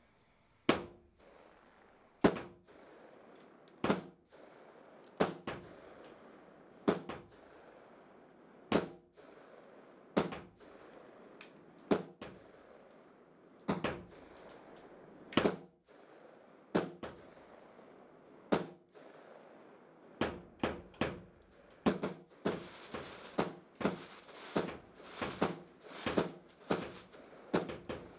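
Aerial fireworks bursting: single bangs, each trailing off in an echo, about one every one to two seconds. In the last third the bangs come faster, about two a second, with crackling between them.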